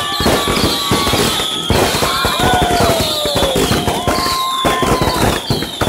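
Consumer fireworks going off in quick succession: a dense run of bangs, pops and crackling, with shrill whistles that keep sliding down in pitch, several a second apart.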